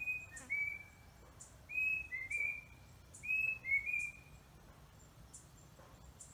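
A coati's calls: short, high, slightly falling whistles in quick groups of two or three. Three groups come in the first four seconds, then they stop.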